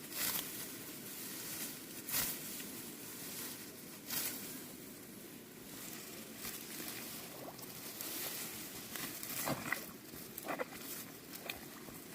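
Irregular rustling and crunching strokes, one every couple of seconds, over a steady hiss, with two short falling squeaks near the end.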